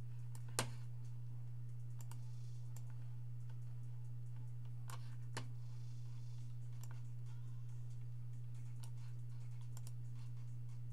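Scattered clicks of computer keyboard keys being pressed, a few at a time, with one sharper click about half a second in, over a steady low electrical hum.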